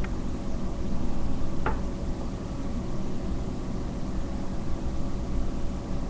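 Steady low rumbling background noise with a faint hum. One short click sounds about a second and a half in.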